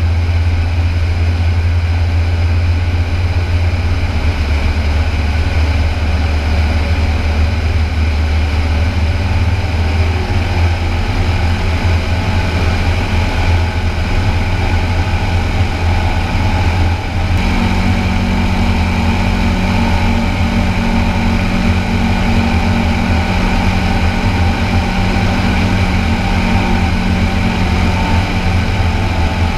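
Engine and pusher propeller of a weight-shift microlight trike droning steadily in flight, heard from a camera on the wing rigging. A little past halfway a new, somewhat higher steady note joins the drone.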